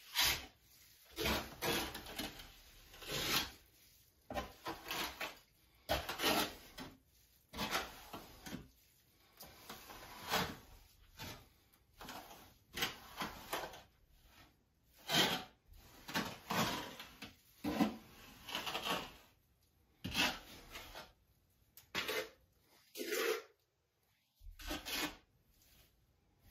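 Hand trowel scraping glass-tile thinset mortar onto a wall and smoothing it, a run of uneven strokes with short pauses between them.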